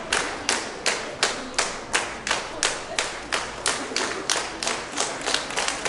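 Audience clapping in unison, a steady beat of about three claps a second that turns quicker and less even near the end.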